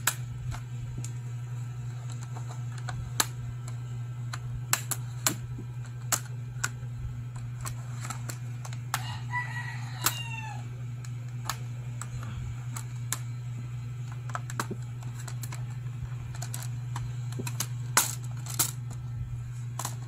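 Plastic clips of a Lenovo ThinkPad E540's bottom access cover clicking and snapping as a plastic pry tool is worked along its edge, in scattered sharp clicks. A pitched call sounds about nine seconds in, over a steady low hum.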